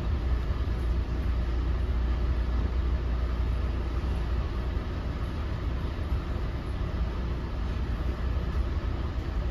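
Steady low rumble of an NJ Transit MultiLevel commuter coach running at speed, heard from inside the passenger cabin.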